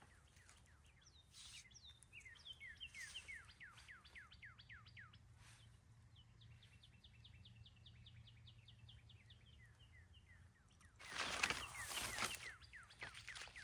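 A songbird singing faintly: a run of quick downward-slurred whistled notes, then a fast even trill, then more slurred notes. About eleven seconds in, a brief loud rustle of gear being handled.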